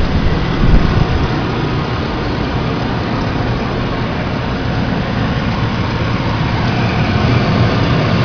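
2000 GMC Sierra's 6.0-litre Vortec V8 idling steadily, heard close up over the open engine bay. A smooth idle with no knocks or other noises.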